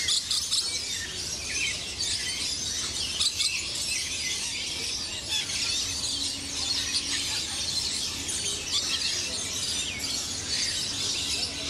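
Many birds chattering at once: a dense, unbroken tangle of short shrill chirps and squeaks.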